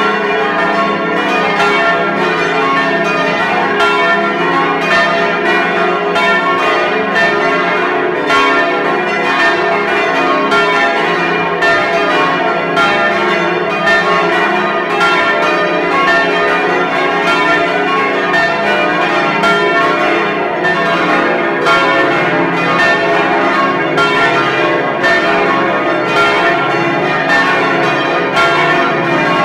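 Several large bronze church bells of St. Stephan, Karlsruhe, ringing together in a New Year peal, heard close up inside the belfry. Their clapper strikes overlap continuously, with a dense, uneven rhythm over the bells' sustained hum.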